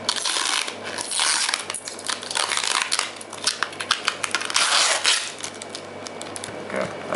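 Clear plastic wrapping crinkling and rustling as a tablet is pulled out of it by hand. It comes in several crackly bursts, loudest about a second in and again around five seconds in, and thins out near the end.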